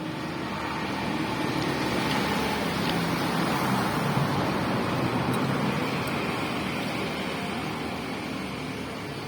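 Road traffic: a vehicle passing close by, its noise growing louder toward the middle and fading away again.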